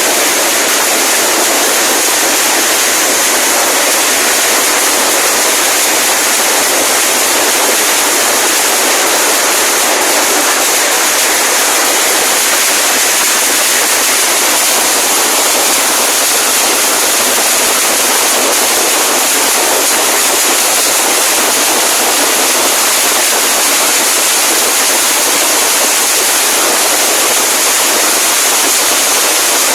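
A long string of Chinese firecrackers going off in a dense, unbroken crackle, loud and steady in level.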